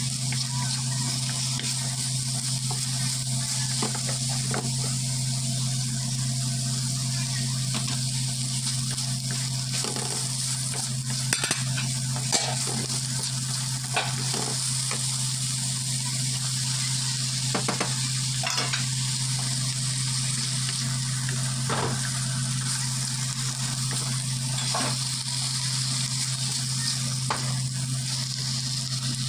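Bitter gourd, carrots, peas and red bell pepper sizzling in oil in a wok, stirred with a wooden spatula that knocks and scrapes against the pan every few seconds. A steady low hum runs underneath.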